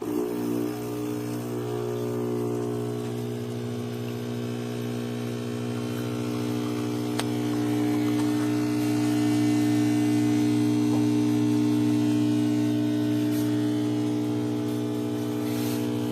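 Neretva 15-bar espresso machine's pump switching on abruptly and running with a steady buzzing hum, pushing water through to pull a shot.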